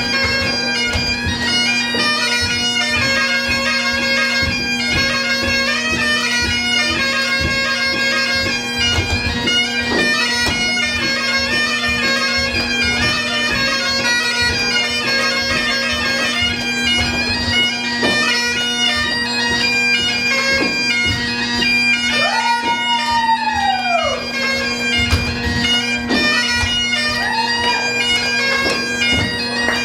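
Great Highland bagpipes of a pipe band playing a lively Irish jig, the chanter melody over steady drones, with a drum beating the time.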